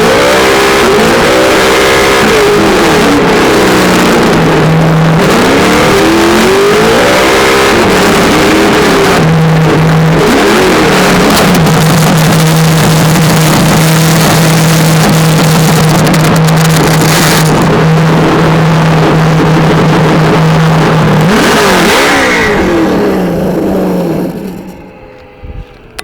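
Traxxas On-Board Audio speaker on a Traxxas Slash RC truck playing a simulated engine sound over the noise of the truck running. It revs up and down several times, holds a steady idle-like tone, revs once more, then fades away near the end.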